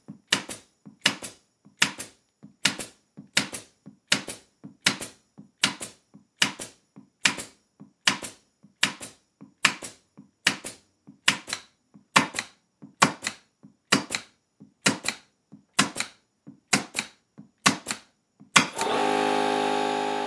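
A 21-gauge pin nailer firing pins into a pine board, one sharp shot a little more than once a second, about twenty in a row. Near the end the RIDGID Gen5X 18V brushless cordless compressor kicks on and runs steadily, refilling its tank after the shots have drawn the pressure down.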